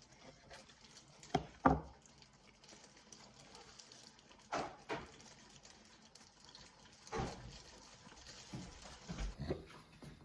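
A few short soft knocks and handling clatters, about eight of them spread out, in a quiet small room.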